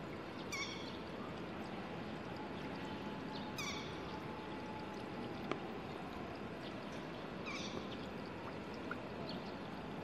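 A bird gives three short calls, each falling quickly in pitch, spaced a few seconds apart, over a steady outdoor hiss.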